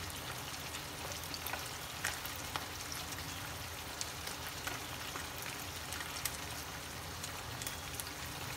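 Small whole goby fish frying in oil in a nonstick pan: a steady sizzle with scattered crackling pops.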